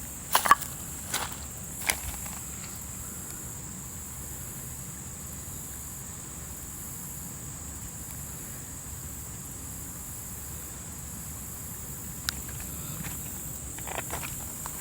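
A steady high-pitched insect drone, with a few sharp footsteps on stony ground in the first two seconds and again near the end.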